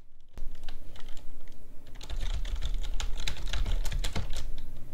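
Typing on a computer keyboard: a quick, continuous run of keystrokes that starts about half a second in.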